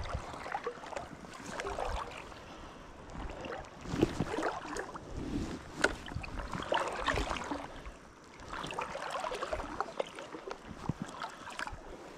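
River water splashing and sloshing in irregular surges, with a couple of sharp knocks about four and six seconds in.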